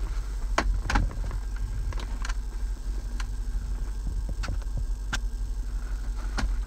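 Steady low rumble with a handful of light clicks and knocks scattered through it, as a handheld diagnostic scan tablet is handled and shifted.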